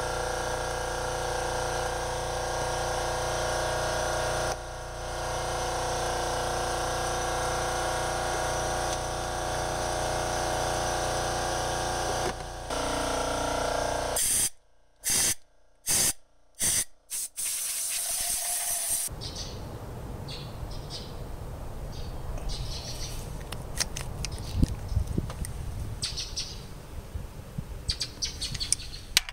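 A steady mechanical hum for about the first half. Then compressed air hisses from a blow gun in short blasts and one longer burst, blowing dust and debris out of the spark plug wells. After that come scattered clicks of metal tools being handled.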